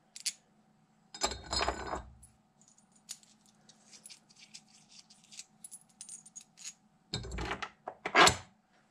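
Small stainless steel screws, washers and nuts clinking and jangling in the hand, with light metallic ticks. There is a louder clatter about a second in and two louder knocks near the end as a screw is set into the steel bracket.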